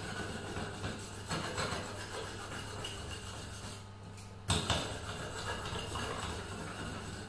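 Irregular metal scraping and rubbing strokes of a thin tool drawn along the steel blade of a rubber tapping knife, as in sharpening or finishing the edge. About halfway through there is one sharp metal knock, the loudest sound, over a steady low hum.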